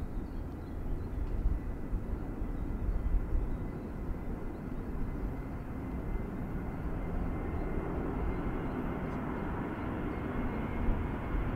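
Boeing E-3A Sentry's four TF33 turbofan jet engines running at a distance while the aircraft moves on the ground: a steady rumble with a thin, steady turbine whine. The whine and rumble grow somewhat stronger in the second half.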